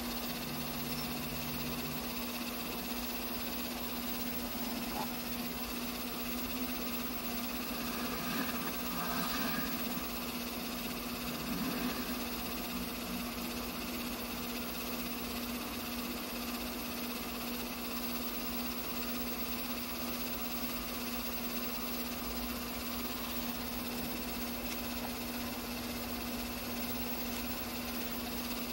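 Steady low electrical hum over a constant hiss, with a few faint, indistinct sounds about eight to twelve seconds in.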